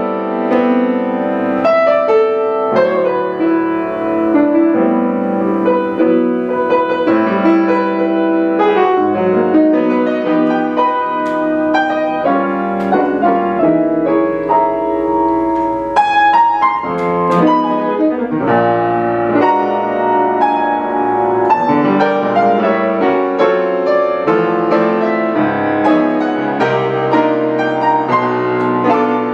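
Grand piano taking a jazz solo over a waltz, with upright bass walking underneath; the saxophones are silent.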